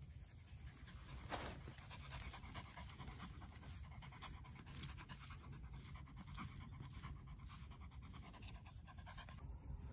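Small Chihuahua–Yorkshire terrier–miniature dachshund mix dog panting close up, in a long run of quick short breaths over a low steady rumble.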